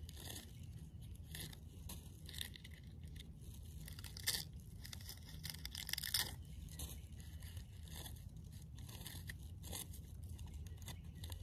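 Faint, irregular crackling and tearing as shelf fungi are broken off a rotting log by hand, a few sharper snaps standing out among them.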